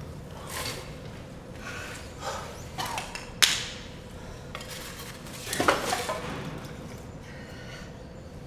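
A few scattered knocks and clinks of small hard objects. A sharp clink comes about three and a half seconds in, and a louder knock with a short ring comes near six seconds.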